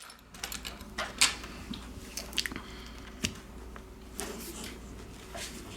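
Small clicks and light taps from handling a smartphone and small repair tools on a workbench, irregular and a few each second, over a steady low hum.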